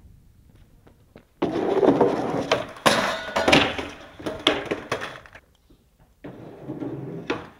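Skateboard wheels rolling on concrete and the wooden board clattering and slapping down as a skater bails, with several sharp knocks. The sound starts after a quiet first second or so, breaks off briefly about five and a half seconds in, then rolling picks up again.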